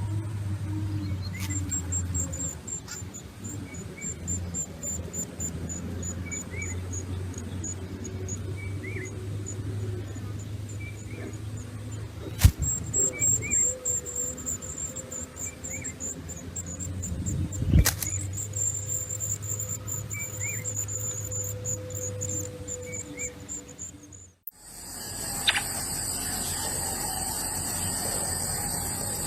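Outdoor ambience: a high, pulsing insect chirr with faint short chirps over a low hum, and two sharp knocks about 12 and 18 seconds in. About 24 seconds in it cuts abruptly to a steady hiss.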